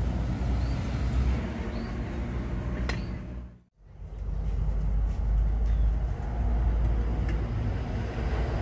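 Steady low outdoor rumble, with a few light clicks of a metal spoon against an aluminium pot of cooked rice and faint high chirps. The sound drops out briefly a little under four seconds in.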